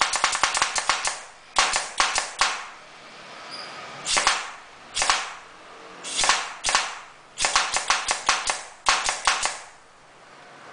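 Pneumatic tool fired in short bursts of rapid rattling impacts, one longer run and then about six short ones, with a softer air hiss between bursts. It is being run on an air line fitted with an inline oiler to test the lubrication.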